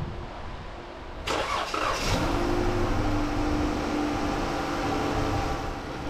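2012 Dodge Challenger's 3.6-litre Pentastar V6 being started: the starter cranks briefly a little over a second in, the engine catches and then settles into a steady idle.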